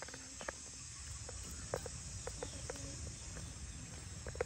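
Baby monkey sucking milk from a feeding bottle: soft, irregular sucking clicks that come faster near the end, over a steady high hiss of insects.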